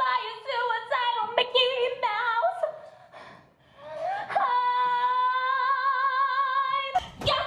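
A woman singing through a stage microphone: short sung phrases with bends in pitch, then after a brief gap she slides up into one long high note held with vibrato. A sharp loud thump breaks it off near the end.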